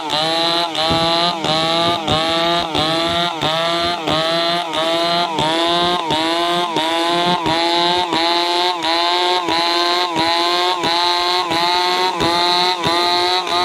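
Stihl two-stroke chainsaw at high revs ripping a log lengthwise, its engine pitch dipping under load and climbing back in a steady rhythm about three times a second.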